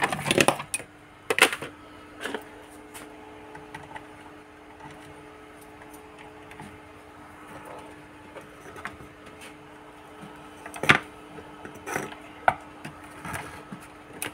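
Scattered clicks and knocks as a plastic project box, its lid and its cables are handled on a workbench, over a steady low hum. One sharper knock comes about eleven seconds in.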